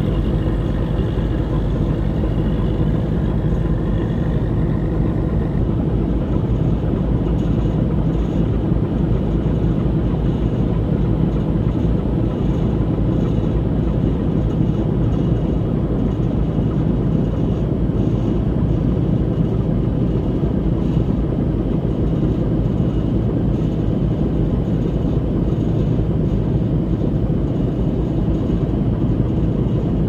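Boat engine running steadily, a low, even drone on the river, with a faint higher whine over it for the first few seconds.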